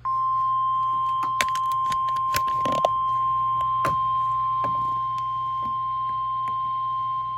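Emergency Alert System attention tone ahead of a National Weather Service severe thunderstorm warning. It is a single steady high tone near 1 kHz, the 1050 Hz Weather Service alert tone, over a low hum, with scattered sharp clicks and crackles.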